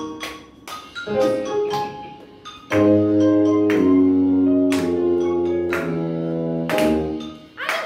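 Instrumental intro of an upbeat worship song: percussion hits and light struck notes, then sustained chords with bass come in about three seconds in.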